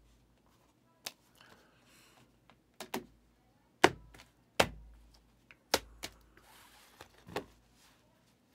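Hard plastic card top loaders tapping and clacking on a table and against each other as trading cards are handled and slid into them: about eight sharp taps at irregular spacing.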